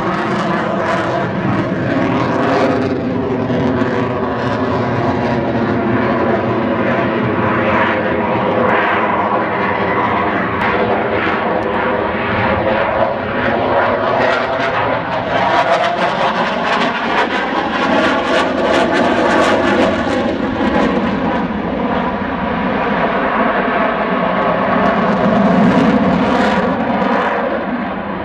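Twin General Electric F404 turbofan engines of a CF-18 Hornet in flight: a loud, continuous jet noise whose tone sweeps down and then back up about halfway through as the aircraft manoeuvres.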